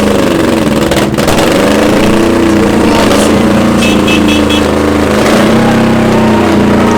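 Custom motorcycle engine running and being revved, its pitch rising and falling repeatedly.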